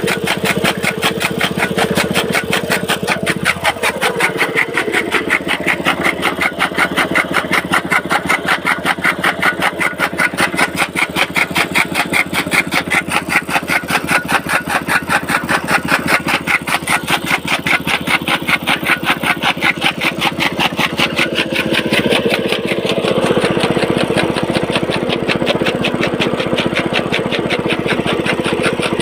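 Small single-cylinder petrol engine running steadily, belt-driving a flywheel chaff cutter as green fodder is fed through, with a fast regular beat a few times a second. The beat fades out about three-quarters of the way through, leaving the engine running on its own.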